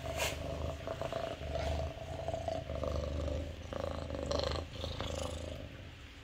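A cat purring up close as it is stroked: a steady low rumbling purr, with a few brief rustles.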